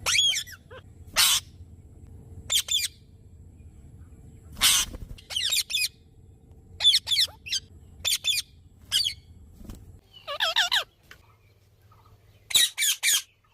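Parrot calling in a series of short squawks and chirps with gaps between them, including harsher screeches about a second in and near five seconds in, and a quick run of calls near the end.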